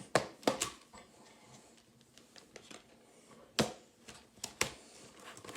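Sharp plastic clicks and taps from handling 4K disc cases and their box: a few in the first second, a louder one a little past halfway, then several more near the end.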